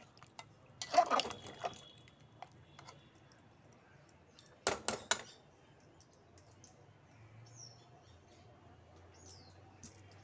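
A metal spoon stirring dal in an aluminium pressure cooker, clattering against the pot about a second in and clinking sharply a few times near the middle. Faint high chirps, like a small bird, come in toward the end.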